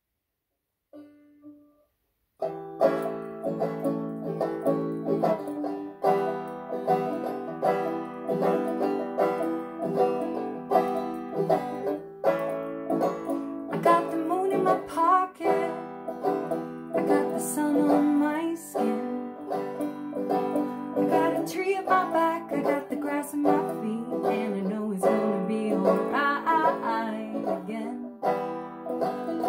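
Acoustic folk-punk instrumental: plucked strings played in quick, closely spaced notes, starting about two and a half seconds in after a brief faint note.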